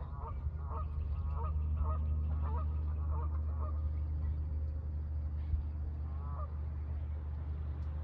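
Geese honking, a quick run of calls about twice a second for the first few seconds, then one more honk about six seconds in, over a steady low rumble.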